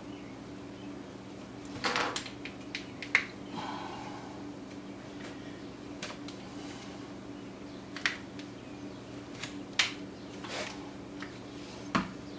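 Scattered clicks and knocks of bar clamps and wood being handled as a glued-up plywood piece is clamped, over a steady low hum.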